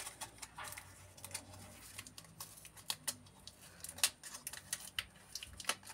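Brown kraft-paper wrapping and tape on a small package crackling and rustling as fingers pick and pull at it, a run of irregular small clicks and crinkles.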